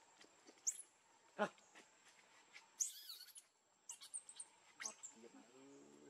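Baby pig-tailed macaques squeaking while they play-fight: several short high-pitched squeaks and one longer squeal about three seconds in that falls in pitch, with a low grunt near the end.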